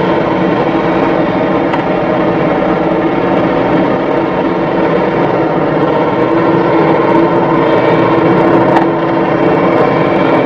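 Heavy diesel machinery engine running steadily, a dense, even drone that gets a little louder about seven seconds in.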